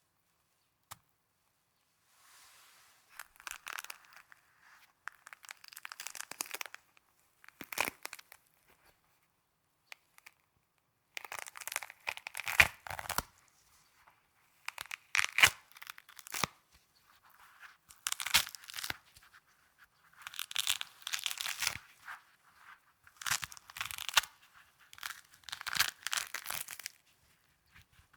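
Snow being crunched and crushed, in about nine noisy bursts of a second or two each with short pauses between.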